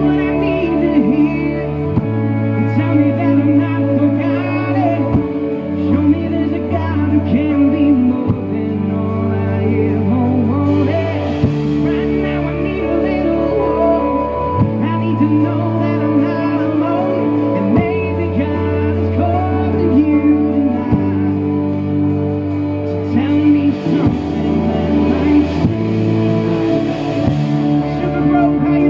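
Live band playing a song: a male lead singer sings over electric guitar, bass guitar and drums, with the bass line moving to a new note about every three seconds.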